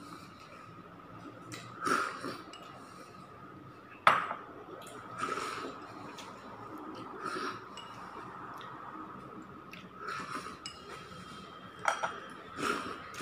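Chopsticks clinking against a porcelain rice bowl and the bowl knocking on the table during a meal: a handful of separate sharp clinks and knocks, the loudest about four seconds in.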